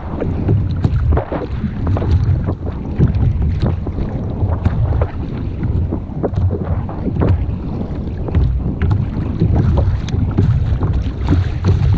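Wind buffeting the microphone with a low rumble, over small irregular splashes of water slapping against a kayak hull.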